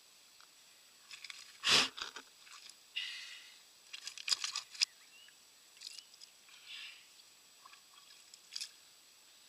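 Close handling sounds as a small fish is held in the hands: scattered rustles, clicks and light wet sounds, with one loud knock about two seconds in and a burst of clicks a little after four seconds.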